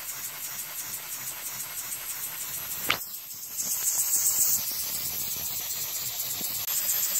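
Small twin-cylinder compressed-air engine with clear cylinders running fast: a rapid, even hissing chatter of exhaust air that gets louder a little after halfway, with one brief squeak about three seconds in.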